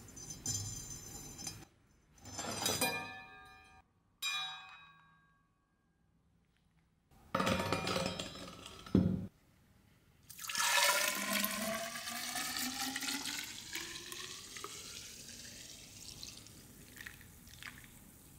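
Rust-remover liquid poured from a glass bottle into a narrow plastic tube holding a rusty knife blade: a steady splashing pour whose pitch climbs as the tube fills. Before the pour there are a few short metallic clinks that ring briefly, from the wired blade being handled.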